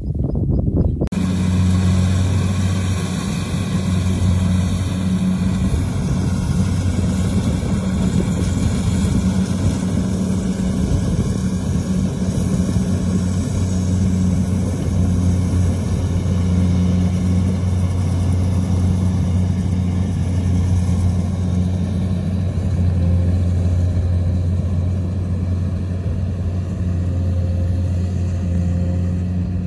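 A motor engine running loud and steady at an even, low pitch, starting suddenly and holding without revving.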